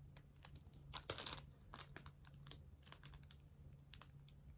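Faint handling noises from a pack of flake-seal envelope stickers: small scattered clicks and light rustles, with a slightly louder rustle about a second in.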